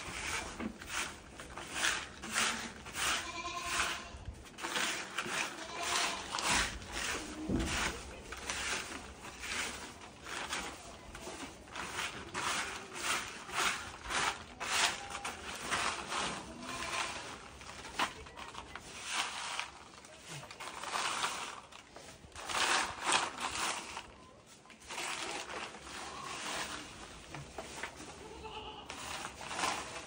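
Goats bleating, in a dense run of short calls.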